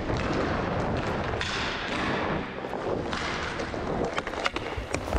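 Inline hockey skates rolling and striding on interlocking plastic rink tiles, a steady rushing noise, with scattered sharp clicks and taps that come thicker about four to five seconds in.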